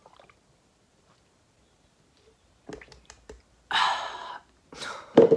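A man swallowing a drink, then wet mouth clicks and a loud, breathy "ahh" exhale at the salty taste, followed by a short voiced grunt near the end.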